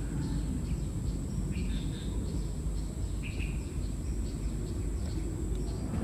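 Outdoor ambience: a low, uneven rumbling noise with short bird chirps scattered through, about half a dozen, and a thin steady high-pitched tone underneath.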